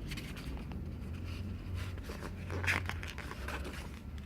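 Faint rustling and light handling noises over a low steady hum, with a slightly louder soft sound a little past halfway.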